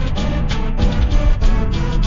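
Soundtrack music with a fast, steady beat and heavy bass.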